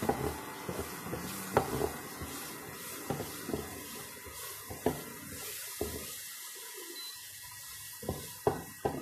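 Garlic and onion sizzling in margarine in a stainless steel pot, with a steady hiss, while a spatula stirs them and knocks and scrapes against the pan at irregular moments.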